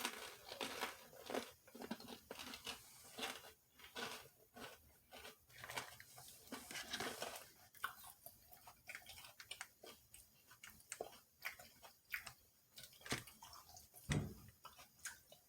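Close-up chewing of crispy fried chicken dumpling bites, with irregular crunching and crackling from the fried wrapper.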